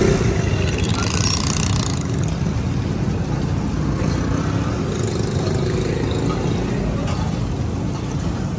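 Chicken rolls deep-frying in a tray of hot oil, with a steady sizzle over a steady low rumble.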